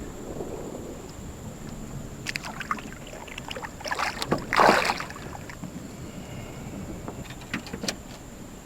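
Knocks and handling noise in a small skiff over a steady low hiss: a few sharp knocks around two and a half seconds in, one louder, brief rushing burst a little past the middle, and a couple of clicks near the end.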